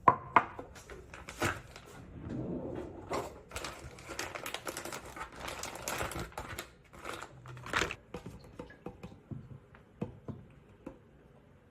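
Irregular clicks, knocks and rustling of objects being handled, loudest in the first second and again near eight seconds, then thinning to a few faint taps.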